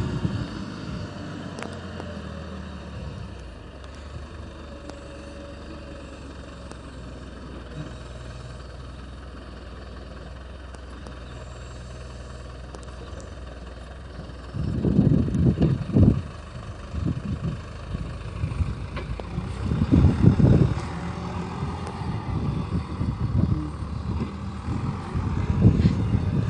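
Diesel engine of a JCB Loadall telehandler running steadily while it works a round hay bale. Louder irregular low rumbling comes in bursts from about halfway through.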